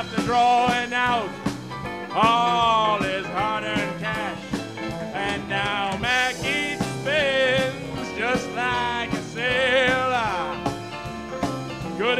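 Live band music: drums, bass, keyboards and electric guitar playing under a singer, with wavering vibrato on the held notes.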